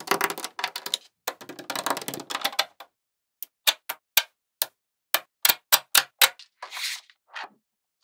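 Small magnetic balls clicking and snapping together as sheets and strips of them are pressed onto a slab of balls: a dense rattle of clicks for the first few seconds, then a string of separate sharp clicks, and a brief hiss near the end.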